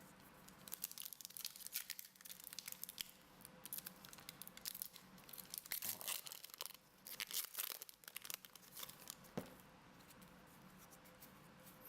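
Pokémon booster pack's foil wrapper being torn open and crinkled: a run of ripping and crackling that dies down near the end.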